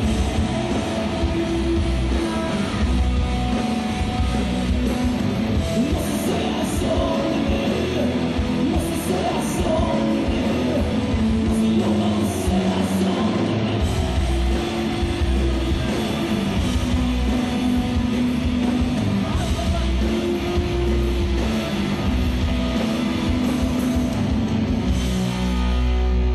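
Live rock band playing at full volume: electric guitars, bass and drums, with a singing voice over them, recorded from among the audience.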